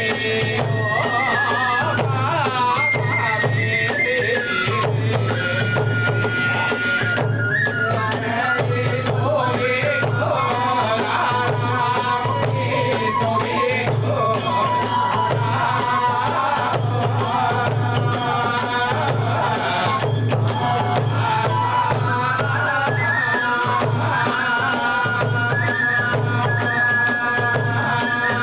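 Kagura hayashi music: a bamboo transverse flute playing a held, ornamented melody over a steady pulse of large drum beats and continuous clashing of small hand cymbals.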